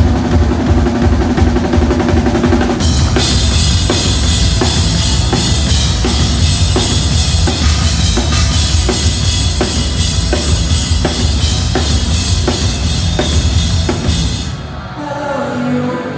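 Rock band playing loud and live, driven by a pounding drum kit with steady bass-drum and snare hits. About three seconds in, the sound turns brighter and fuller. Near the end the full band drops back suddenly.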